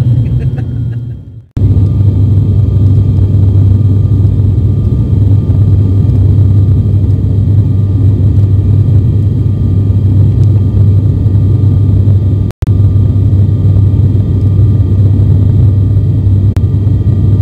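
Steady drone of a turboprop airliner in flight heard from inside the cabin, with a strong low hum from the engines and propellers. The sound fades and breaks off about a second and a half in, then returns, and drops out for an instant about twelve and a half seconds in.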